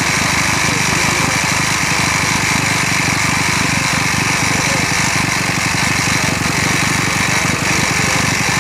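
Small two-stroke minibike engines running steadily, a dense fast-firing drone with a hiss over it.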